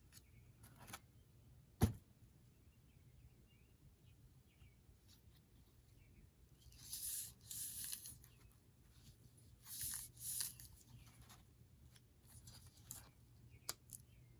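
Paper rustling and sliding, in two short bouts of scraping, with one sharp tap about two seconds in.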